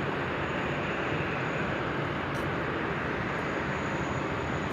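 Steady rushing noise of jet aircraft engines at the airport, even in level throughout.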